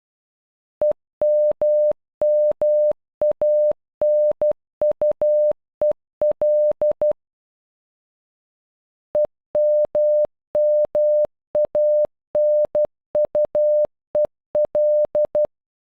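Morse code for EMMANUEL keyed in a single steady beep tone at normal speed: dot, dash-dash, dash-dash, dot-dash, dash-dot, dot-dot-dash, dot, dot-dash-dot-dot. The whole word plays twice, with a pause of about two seconds between the two runs.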